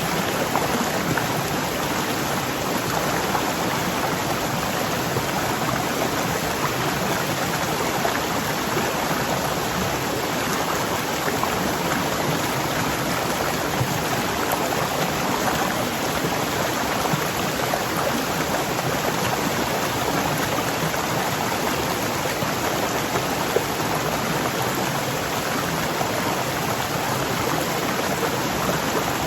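Waterfall rushing with a powerful, steady roar of falling water.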